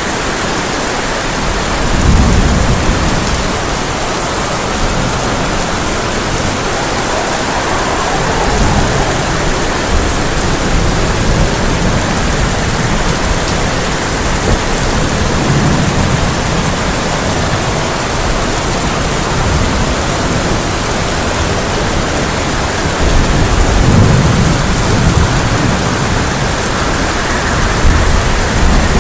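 Heavy rain falling steadily on a tin roof, with low rolls of thunder that swell several times, loudest about two seconds in and again after about twenty-three seconds.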